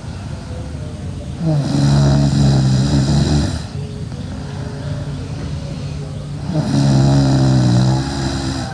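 A sleeping girl snoring loudly: two long, low buzzing snores of about two seconds each, about five seconds apart.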